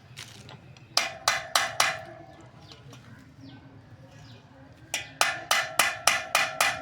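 Hammer blows on metal, each with a short metallic ring: four quick strikes about a second in, then a faster run of about seven strikes starting near five seconds in.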